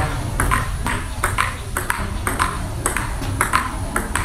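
Table tennis rally: the celluloid ball clicks sharply off the paddles and the table, a few hits a second in an even back-and-forth rhythm, over a steady low rumble.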